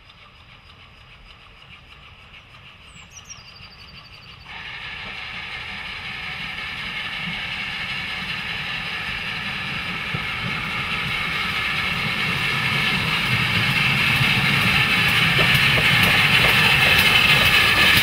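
Steam locomotive hauling coaches draws near and passes close by, its sound building steadily from faint to loud. There is a sudden step up in level about four and a half seconds in, and sharp clicks near the end as it goes past.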